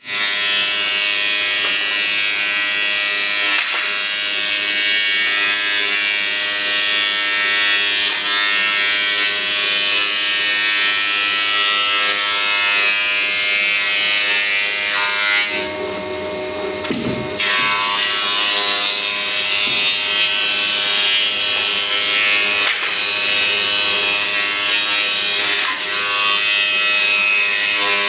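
Combination planer-thicknesser running and planing long boards: a steady, loud whine with the rushing noise of the cutterhead taking wood off. The cutting noise drops away for about two seconds past the middle, then picks up again.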